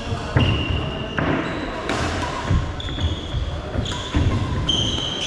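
Badminton rally: sharp knocks of rackets hitting the shuttlecock and footfalls, with short high-pitched squeaks of court shoes on the floor.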